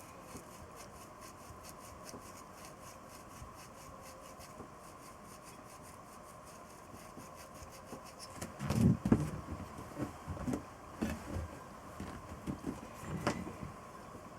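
Irregular knocks, clunks and rubbing of parts and tools being handled on a work surface, starting a little past halfway and loudest at the first few, over a faint steady hum.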